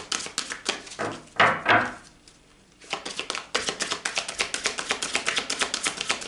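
A deck of oracle cards being shuffled by hand: a quick run of light card snaps that pauses briefly about two seconds in, then carries on.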